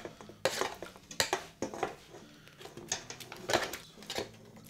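A long metal utensil scraping and knocking against a metal roasting tray as roasted bones and vegetables are pushed off into a stainless steel stockpot: a series of irregular scrapes and clatters.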